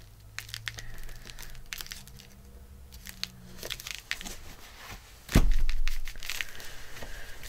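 Paper handling on a desk: small rustles and taps as postage stamps are pressed onto a postcard, then a sudden loud thump about five and a half seconds in, followed by a cloth rubbing over the paper.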